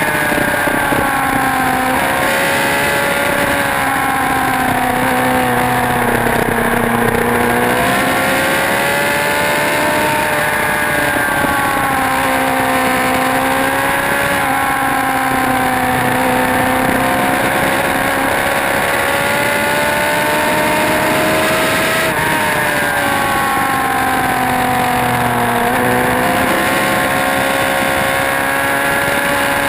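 Motorcycle engine ridden hard on a race track, held at high revs. Its note sinks and climbs repeatedly as the bike slows and accelerates, over a constant rushing noise.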